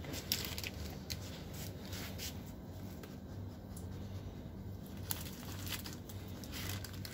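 Black Labrador retriever nosing at packaged goods on a shop shelf: faint scattered sniffs and light rustles, a few short ones about a second apart, over a low steady hum.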